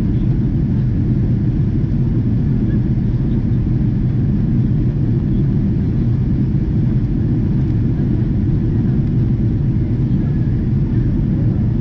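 Boeing 777-200ER cabin noise in flight: the engines and rushing airflow heard through the fuselage as a steady, low drone.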